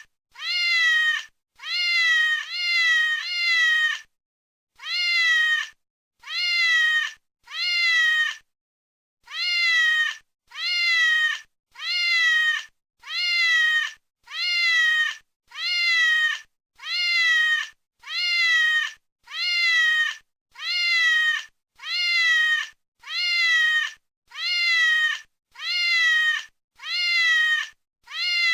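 A domestic cat's meow repeated over and over, about one a second, the same short call each time, gliding briefly up then falling in pitch, with two short pauses in the run.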